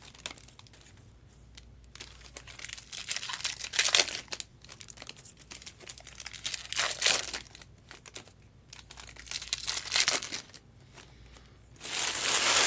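Trading-card pack wrappers crinkling and tearing in several separate bursts a few seconds apart, as packs are opened during a box break.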